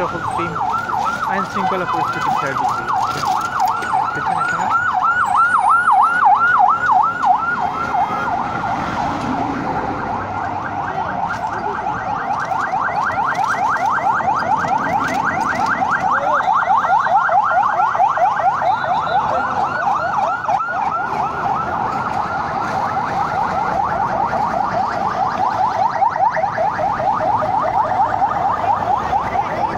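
Police patrol vehicle siren on a fast yelp: rapid rising sweeps that repeat several times a second without a break, swelling louder and easing off as the vehicles pass.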